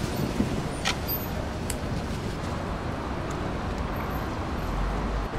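Steady outdoor background noise with a low rumble, like road traffic, and a few faint clicks about one and two seconds in.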